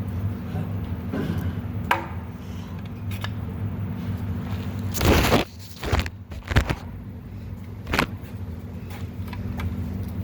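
Hand tools knocking and scraping against metal engine parts during a teardown: a few sharp clanks, the loudest about five seconds in, over a steady low hum.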